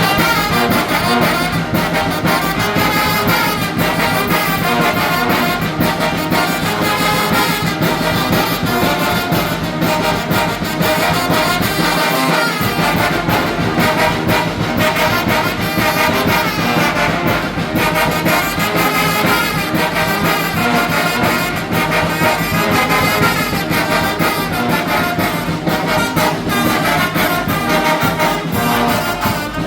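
Mexican brass band (banda) playing a huapango, with trumpets and trombones carrying the tune, loud and steady throughout.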